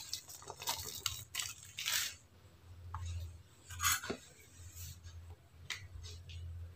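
Metal spoon scraping and clinking against a stainless steel bowl as food is scooped out: a scatter of light scrapes and small knocks, the clearest about two and four seconds in.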